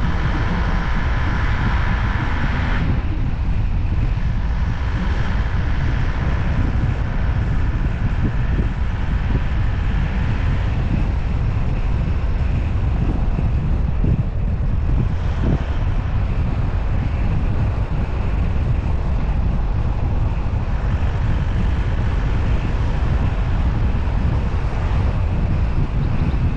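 Steady, heavy wind rumble on an action camera's microphone mounted outside a moving Chevrolet Tavera, over the car's engine and tyre noise on a wet road.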